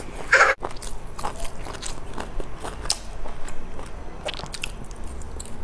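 Close-miked eating sounds: biting into and chewing a grilled sausage off a wooden skewer, a steady run of many small clicks and mouth noises.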